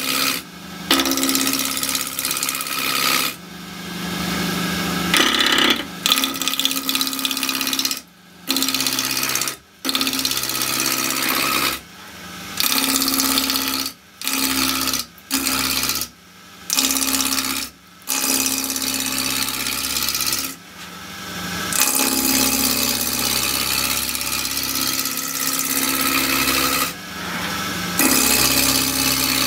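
Roughing gouge cutting a spinning square spindle blank on a wood lathe running at 950 rpm, roughing it from square toward round while it still has flats: a loud, rough, continuous cutting noise over a steady machine hum. The cut stops and restarts briefly about eight times.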